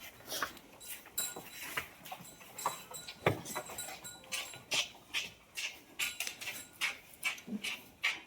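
Cow being milked by hand, milk streams hissing into a pail in short, even strokes about twice a second, with one heavier stroke about three seconds in.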